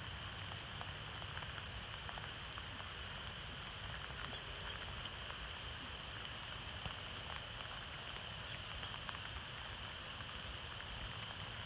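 Steady outdoor background: a constant high-pitched hum over a low wind rumble, with faint scattered ticks.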